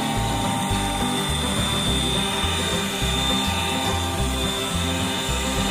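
Electric hand mixer running steadily, its beaters whipping a thin liquid in a stainless steel bowl, with a steady high motor whine. Background music plays along with it.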